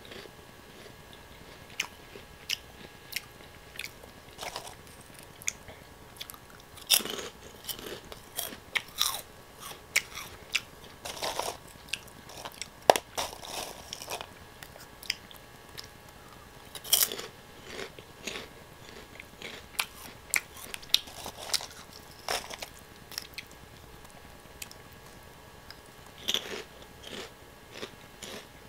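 Close-miked crunching and chewing of O!Gamja potato snack sticks: irregular sharp, crisp bites and crackles with softer chewing between them.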